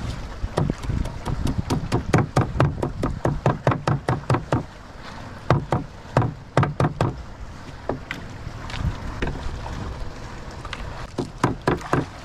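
Knife chopping small fish on a wooden plank, quick strokes about four a second in three runs, with a long pause from about seven seconds in until a last short run near the end. The fish are being chopped up as chum to draw fish to the boat.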